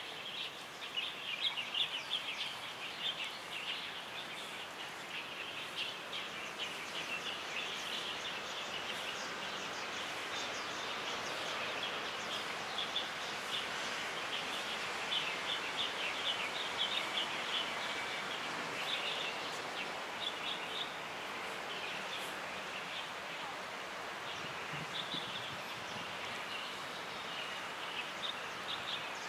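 Many small birds chirping in quick, overlapping calls over a steady outdoor background hiss.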